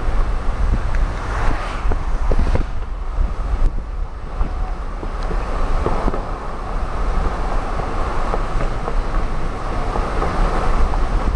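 Road noise of a car being driven, heard from inside the cabin: a steady low rumble of tyres and engine with an even hiss over it and a few light knocks.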